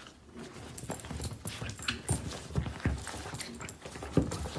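A small dog's paws and claws tapping and scuffing irregularly on a leather sofa as it paws and lunges at a conure in play, growing busier about a second in.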